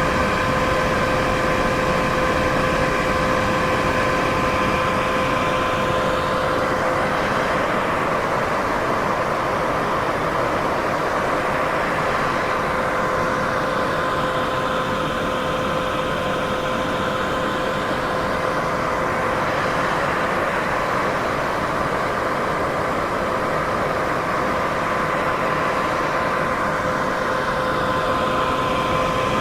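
Continuous white noise, a steady full hiss with two faint steady hum tones, one an octave above the other. The upper part of the hiss slowly sweeps and swirls every several seconds.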